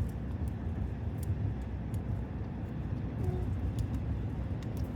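Steady low rumble of car road noise heard inside the cabin, with a few faint small clicks scattered through it.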